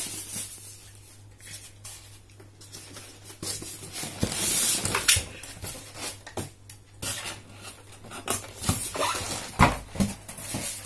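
Handling noise as a plastic-bodied sewing machine is lifted out of its box: stiff polystyrene packing scraping and rubbing against the casing, with several knocks of plastic on plastic, the loudest near the end.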